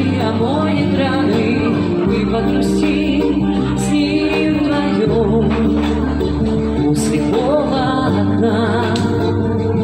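A woman singing into a microphone over a pop backing track of sustained bass and chords, with held notes that waver in pitch.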